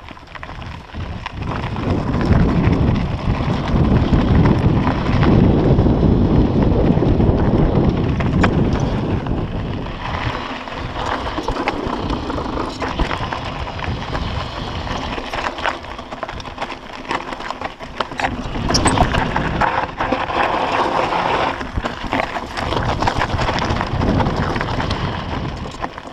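Mountain bike rolling down a rocky dirt trail: tyres crunching over loose stones, with frequent clicks and knocks from rocks and the bike's rattling parts, under a heavy low rumble of wind buffeting the microphone.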